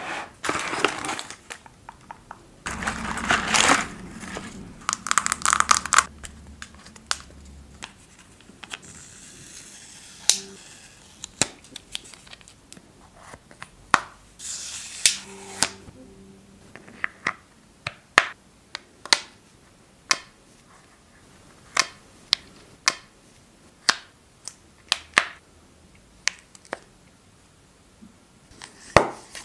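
Long acrylic nails tapping and clicking on a plastic eyeshadow palette, in separate sharp taps about once a second. For the first several seconds there is rustling and crinkling of the cardboard box and its insert.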